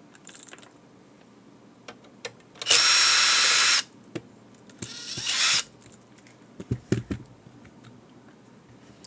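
Electric screwdriver running to back out small case screws: a steady whir of about a second, then a shorter run about two seconds later. Light clicks and taps of handling come near the start and again after the second run.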